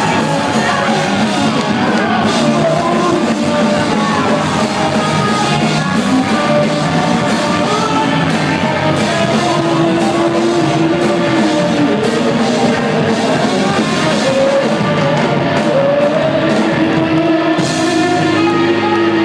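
Rock band playing loud live music: electric guitar, bass and a drum kit with cymbal hits, with held, bending melody notes over them.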